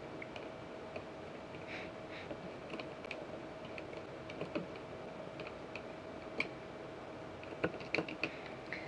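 Light, scattered clicks and ticks of a small Phillips screwdriver turning screws into a quadcopter's plastic motor pod, with a few sharper clicks near the end. A faint steady hum sits underneath.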